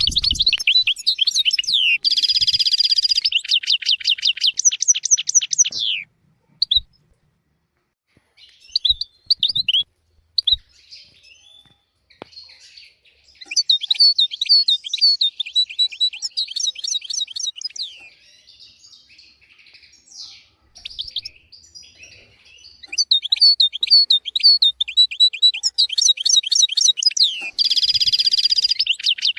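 European goldfinch singing: phrases of rapid, high twittering and buzzy trills, broken by short pauses.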